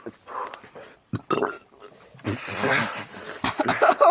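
Non-speech vocal sounds of people reeling from Carolina Reaper pepper burn: a sharp short burst about a second in, a long breathy exhale around the middle, and short voiced sounds near the end.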